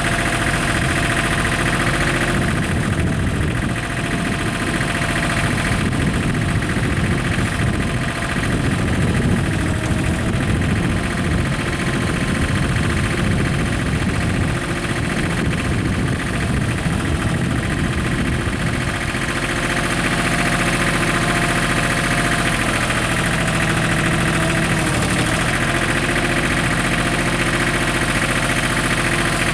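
Tractor engine running steadily throughout; its low rumble changes and evens out about two-thirds of the way through.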